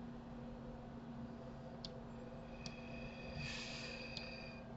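A few faint, sharp computer-mouse clicks with a short burst of rustling noise about three and a half seconds in, over a steady low hum.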